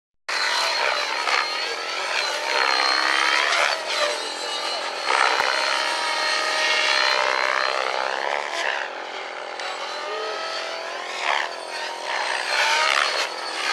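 Radio-controlled model helicopter flying aerobatics overhead. Its motor and rotor give a high, busy whine that rises and falls in pitch again and again as it swoops and turns.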